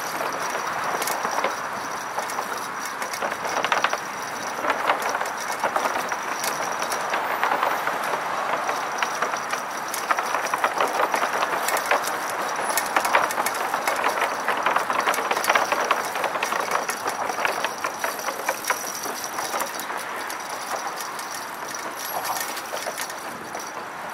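Bicycle being ridden along a bridge path: steady rolling noise with a dense, irregular clatter and rattle of the wheels and bike over the deck.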